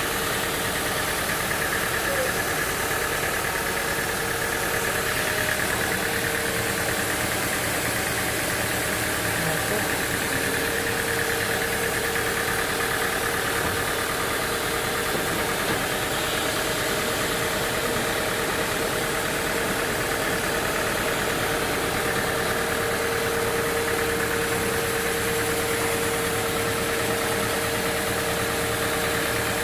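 Sawmill machinery running steadily: a constant engine-like drone with a steady whine held at one pitch.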